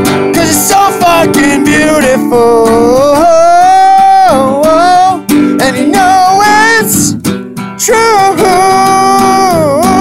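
A man singing over a strummed acoustic guitar, holding two long notes with vibrato, one in the middle and one near the end.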